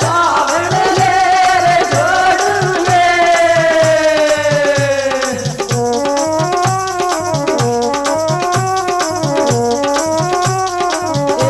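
Rajasthani Meena folk song for Holi. A voice holds a long note that slowly falls until about five seconds in. Then an instrumental passage of quick, stepping melody notes plays over a steady drum beat with rattling percussion.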